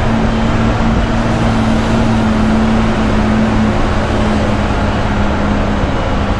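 Bus engine running with a steady hum and road noise as the bus drives along; the hum eases off a little past halfway.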